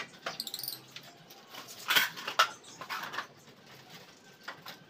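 Small caged birds chirping in short high calls, among light taps and clicks from a metal screen door being fitted into its frame, with two sharp knocks about two seconds in.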